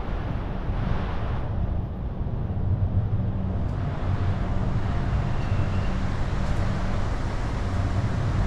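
Low rumble of wind buffeting the microphone, mixed with a large ship's steady running noise on an open promenade deck. A brighter hiss of wind and sea fades about a second and a half in.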